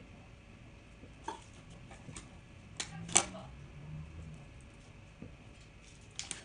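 Scattered small clicks and knocks of hands arranging spruce sprigs around a candle on a tray, the loudest a little after three seconds in and a quick pair near the end.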